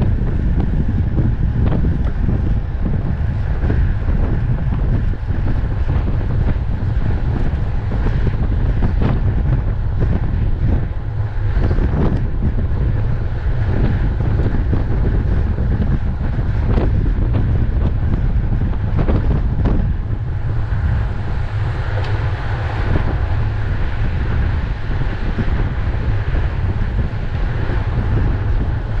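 Wind buffeting the microphone of a bike-mounted camera at racing speed: a loud, steady low rumble with a few brief knocks.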